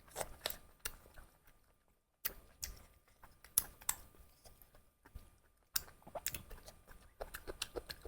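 Close-up eating sounds: irregular wet clicks and smacks of chewing spicy duck curry, broken by two brief silences.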